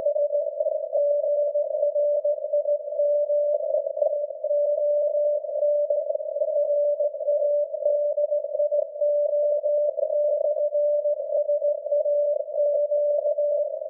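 Receiver audio of the SAQ Grimeton Alexanderson alternator's 17.2 kHz carrier, heard in CW mode as a steady beat tone near 600 Hz. The tone sits in a narrow band of hiss with a few crackles of static, which is heavy atmospheric noise on the very-low-frequency band.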